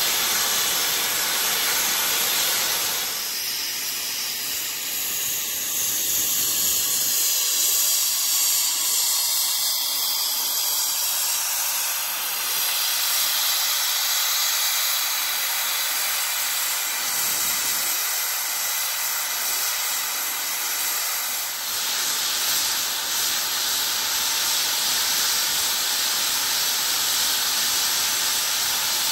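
Steam hissing loudly and steadily from Beyer-Garratt steam locomotive 6029 as it stands at rest venting steam. The hiss changes in tone a few times, thinning in its low end about 7 seconds in and filling out again after about 21 seconds.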